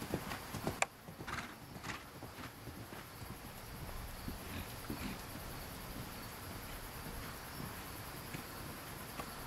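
Horse's hooves thudding on arena sand as a ridden mare moves around the ring, clearest in the first two seconds and fainter after, with one sharp knock just under a second in.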